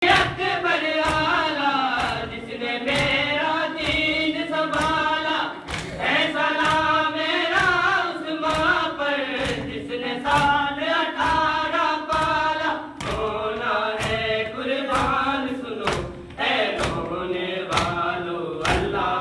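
Male voices reciting a noha, a Shia lament, in unison, with a steady thump about one and a half times a second keeping time.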